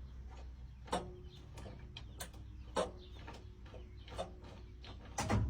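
Starter solenoid of the Ford T850 truck's 534-cubic-inch engine clicking repeatedly in a string of sharp, irregularly spaced clicks over a low hum, while the engine does not turn over: the starter is not getting enough power to spin it, or the engine is seized.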